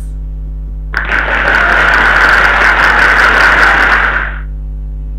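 Steady electrical mains hum. About a second in, a loud burst of rushing noise starts suddenly, holds for about three seconds, then fades out.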